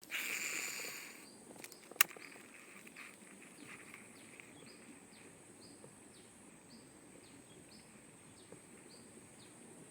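Outdoor insect chorus: a steady high buzz with short high chirps repeating about twice a second. A brief hiss at the start and a single sharp click about two seconds in.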